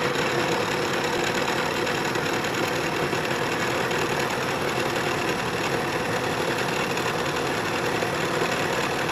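Bridgeport vertical mill driving a 3/4-inch carbide end mill through aluminium in a climb-milling pass: a steady cutting noise with a faint hum from the spindle.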